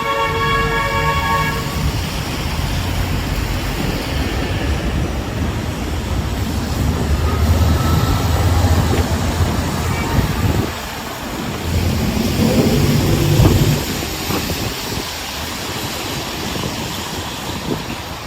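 A short horn toot, then the steady low rumble of a heavy vehicle passing close, swelling twice before easing off.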